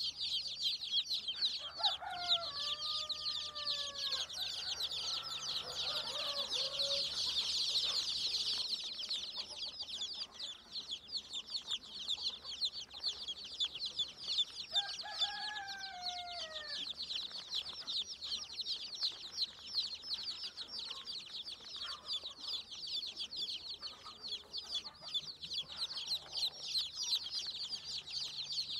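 A brood of chicks peeping continuously in a high, busy chorus. An adult chicken calls over them twice, a couple of seconds in and about halfway through.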